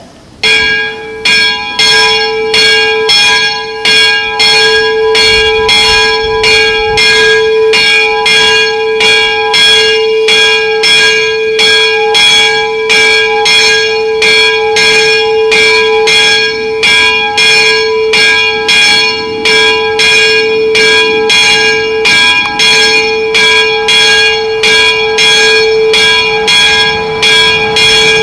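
A church bell ringing, struck about twice a second with its tone humming on steadily between strikes. The ringing starts about half a second in.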